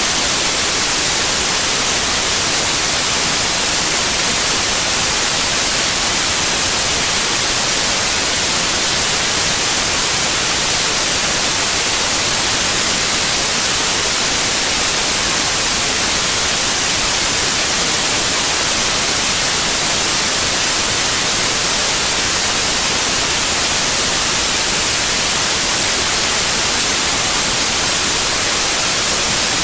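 Loud, steady electronic hiss like static, unchanging throughout, with no other sound in it.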